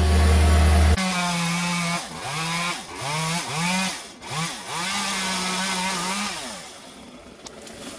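A loud low engine hum for about a second, then a two-stroke chainsaw revving: its pitch swoops up and down several times as the throttle is blipped, then holds at full speed briefly before dying away near the end.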